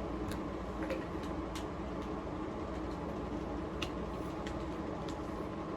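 A steady hum with a few scattered sharp clicks.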